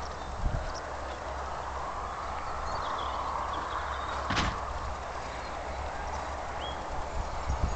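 Open-air ambience: a steady rushing hiss with a low rumble beneath, a few faint short chirps, and one sharp knock about four and a half seconds in.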